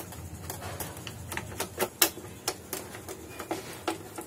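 Irregular light clicks and ticks of a small hand screwdriver turning screws out of a scanner's plastic case, several a second at uneven spacing.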